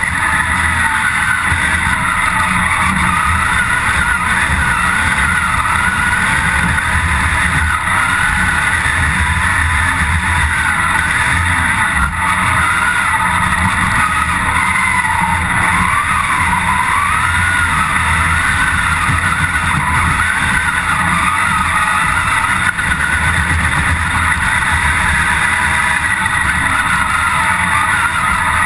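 Competition hillclimb car's engine heard from inside the stripped, roll-caged cabin, driven hard with the revs rising and falling continuously as the driver works through the gears.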